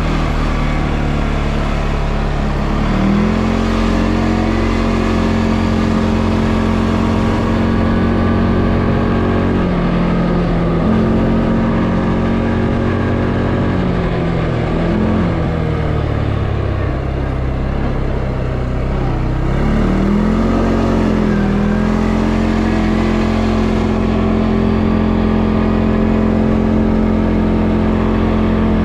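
CFMoto ATV engine running while riding, holding a steady note for stretches and dropping and rising in pitch several times as the throttle is eased off and opened again.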